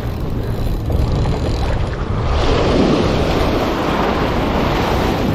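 Ocean surf breaking and washing up the sand around the feet, with wind buffeting the microphone as a low rumble. The wash swells and grows hissier about two seconds in as a wave runs in.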